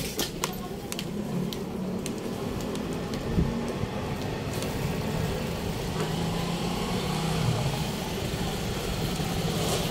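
Street traffic with a motor vehicle engine running nearby, a steady low hum that grows slowly louder.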